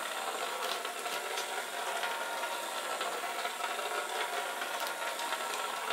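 Small DC drive motors of a two-wheeled robot car kit running steadily as it drives round and round in circles, left on because no stop command could be found.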